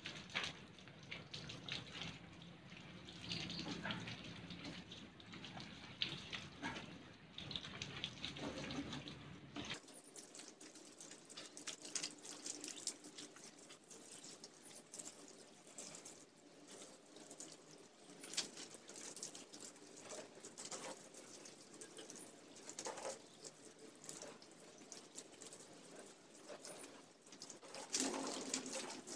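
Water from a garden hose running and splashing onto a scooter and wet concrete, with scattered splashes as a wet rag is rubbed on the rear wheel and wrung out.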